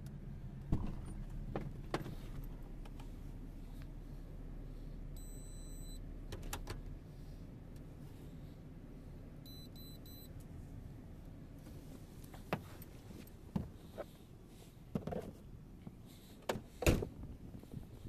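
Pickup truck cab: a low engine hum stops about seven seconds in, and a rapid electronic door chime sounds twice as the door opens. Scattered clicks and knocks follow, the sharpest near the end.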